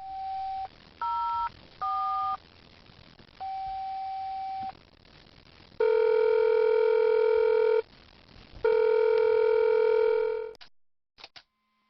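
Car phone placing a call. A short key beep and two dual-tone DTMF keypresses are followed by a longer single beep. Then come two ringing tones of about two seconds each, a second apart, as the call rings through. The sound is thin, cut off at the top like a phone line.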